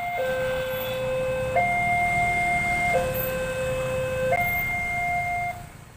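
Electronic two-tone railway level-crossing warning alarm, alternating a low and a high tone about every second and a half, over a low rumble. It cuts off near the end.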